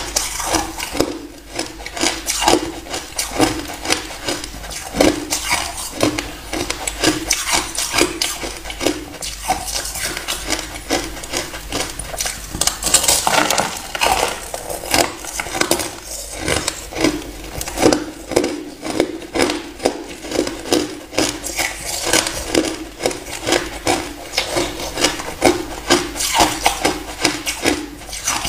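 Crunchy frost-like ice being bitten off a large chunk and chewed: a steady run of crisp, crackling crunches, several a second.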